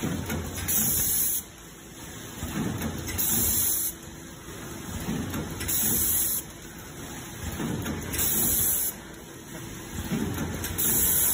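BAOPACK VT52A vertical form-fill-seal powder packing machine running through its bagging cycle: a short, loud hiss about every two and a half seconds, five times, with low knocks and a faint steady hum between.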